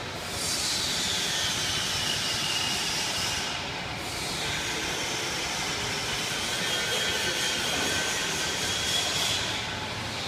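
Chiossi e Cavazzuti Forno Duo conveyor drying oven for printed T-shirts running: a steady rushing machine noise with a hiss that slides up and down in pitch.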